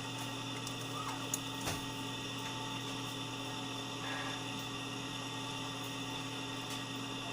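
Steady electrical mains hum, with a couple of faint short clicks about a second and a half in.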